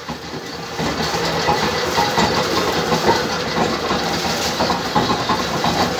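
Sugarcane crushing mill, belt-driven by an electric motor, running while grinding cane: a steady mechanical din with a faint hum and scattered light clatter.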